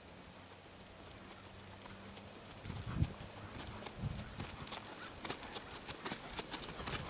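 Horse's hooves thudding on a soft dirt arena, the hoof falls plainest from about three seconds in, with light clicks and rustles building toward the end.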